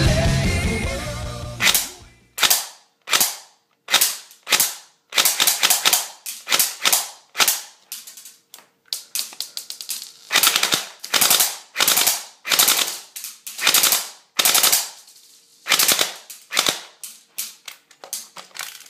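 Double Eagle M82p airsoft gun firing a long string of single shots, one to three sharp snaps a second at an uneven pace. Rock music fades out at the start.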